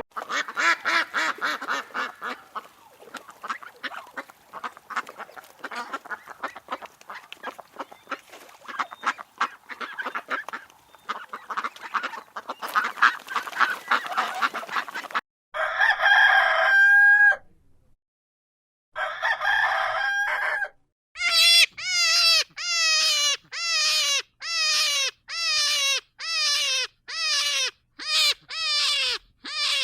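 Domestic poultry calling in three spliced sections. First, a flock clucks and squawks densely for about fifteen seconds. Then come two long drawn-out crows, and finally a quick regular run of short calls that fall in pitch, about one and a half a second.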